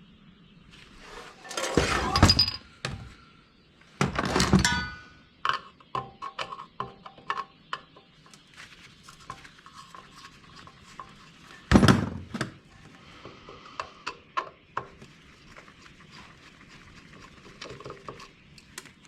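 Metal parts from a dismantled centrifuge being handled and tossed into scrap bins: three loud clanks, about two, four and twelve seconds in, the second ringing, with lighter clinks and rattles of small parts and screws between them.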